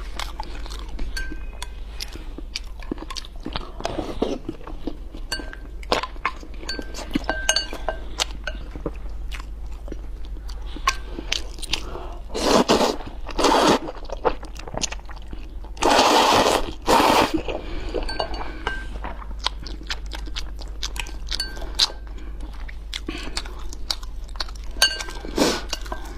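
Close-up eating sounds: chewing with frequent small clicks and clinks of chopsticks against a bowl. Two louder, longer slurps of noodles come about halfway through.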